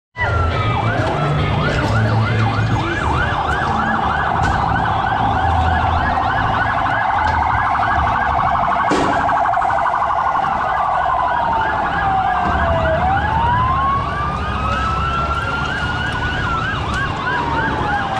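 Police vehicle sirens: a fast yelping siren, about three cycles a second, and from about halfway a second siren with a slow rise and fall over it. A sharp bang sounds about halfway through, over a low vehicle rumble.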